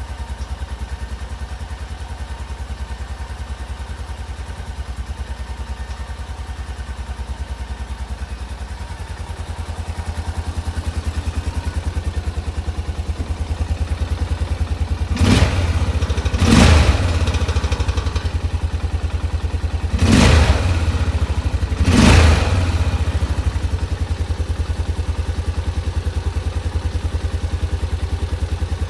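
A 2004 Honda Rincon ATV's single-cylinder engine running with a steady, even pulse, growing slightly louder about a third of the way in. Four short, loud bursts come through the middle stretch, two close together and then two more a few seconds later.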